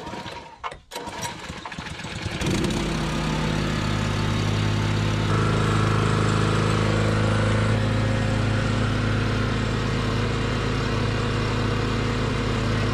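Small single-cylinder petrol engine of a stone-cutting machine starting about two seconds in, then running steadily and turning the machine's stack of cutting discs. A higher whine joins for a couple of seconds about five seconds in.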